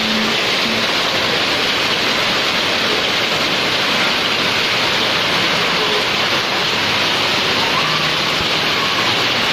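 Heavy typhoon rain pouring down in a steady, loud hiss, with water running off the edges of corrugated roofs.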